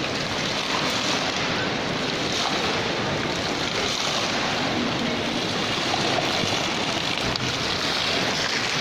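Indoor fountain: many thin water jets splashing steadily into a shallow pool.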